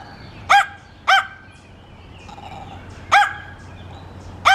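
Small dog barking: four short, sharp single barks, two close together about half a second and a second in, then two more about three and four and a half seconds in.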